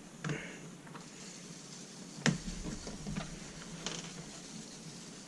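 Leather strap being worked free of its drilled-out rivets by hand: light handling noise with one sharp click about two seconds in and a couple of smaller clicks after it.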